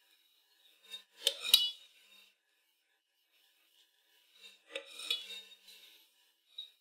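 Two short spells of light metallic scraping and clinking, about a second and a half and five seconds in, from a stainless palette knife and an aluminium cake turntable while whipped cream is smoothed on a cake.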